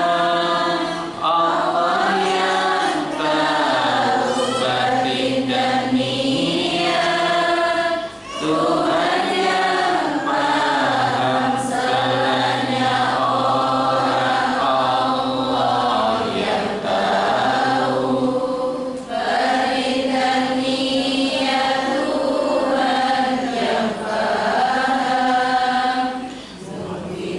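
A man chanting an Islamic devotional song from a songbook into a microphone, in long sung phrases with brief breaks between them.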